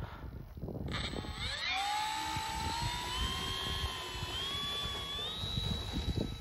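Electric motor and propeller of a radio-controlled Spitfire XIV model throttling up for a take-off run: a whine that starts about a second in, rises in pitch, then holds nearly steady with small steps higher. Gusty wind rumbles on the microphone underneath.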